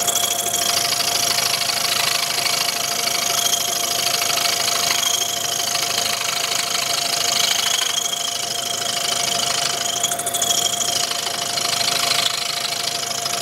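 Milling machine end mill cutting a helical flute into clear acrylic rod at full depth: a steady machine hum with a higher whine that comes and goes.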